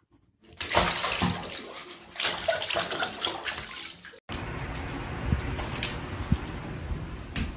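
Running, splashing water, with a short break about four seconds in before a steadier rush of water resumes.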